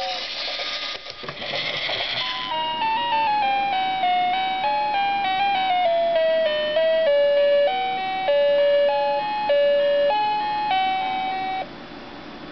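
Fisher-Price Little People Big Top Train's toy sound chip playing a steam-hiss sound effect, then from about two seconds in a simple electronic tune of single beeping notes that cuts off near the end.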